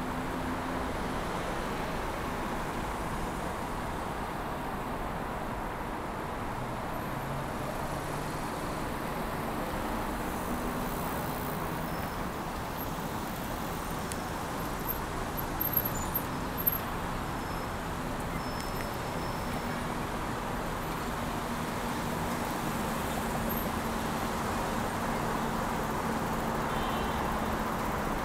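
Steady city road traffic: cars and other motor vehicles running past on a busy road, with a low engine hum rising and fading. A couple of sharp clicks about halfway through.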